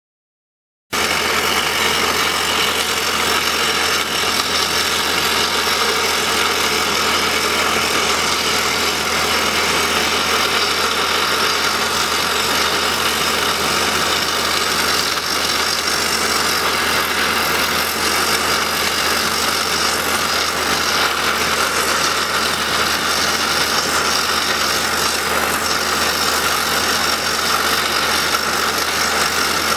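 Kaishan KL511 top-hammer drilling rig drilling into rock: its Montabert HC170 hydraulic rock drill hammering steadily with the rig's engine running underneath. The sound cuts in suddenly about a second in and holds at a constant loud level.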